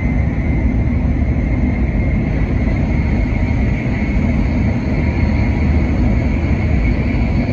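N700S Shinkansen train running at speed: a steady rumble of the running gear with a faint high whine.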